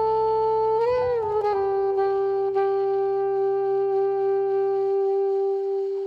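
Instrumental background music: a melody note changes about a second in, then one long note is held over low accompaniment, which drops out near the end as the piece finishes.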